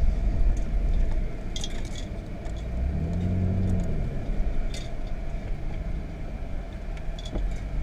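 Car cabin sound while driving slowly over a rough desert dirt track: a steady low engine and tyre rumble with light rattles and clicks from the cabin.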